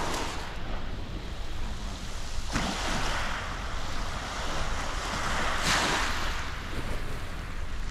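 Small waves breaking and washing up a shingle beach, with two surges of surf about three seconds apart.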